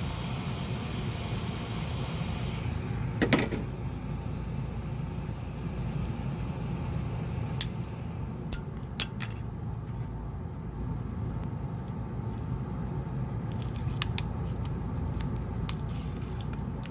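Steady rush of air from a heat gun warming glue inside a phone, its upper hiss dropping away about three seconds in. A sharp click comes just after, then scattered light clicks and taps of small repair tools on the phone's parts.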